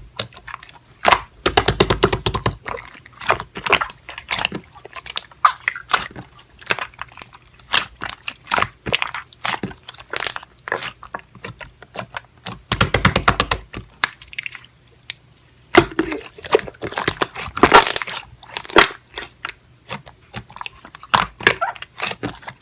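Slime being squished and pressed by hand, making a dense run of quick sticky clicks and crackles, thicker about two seconds in and again near the middle.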